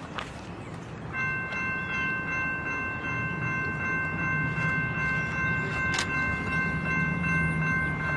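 Freight train approaching: a steady high sound made of several tones sets in about a second in and holds, over a low locomotive rumble that grows louder.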